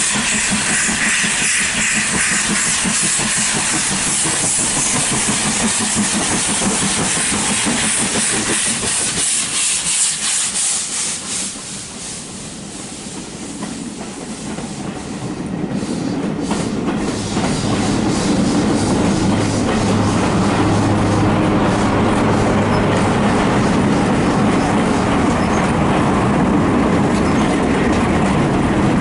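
Steam locomotive passing at low speed with steam hissing, then its coaches rolling by, the wheels clicking over rail joints. A steady low hum joins the wheel noise after the middle.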